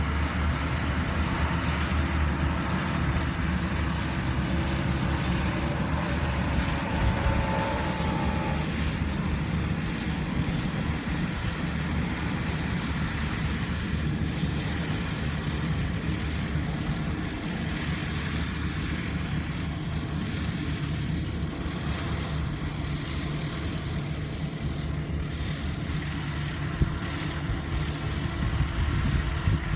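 Rice combine harvester's engine running steadily under load, a constant low drone.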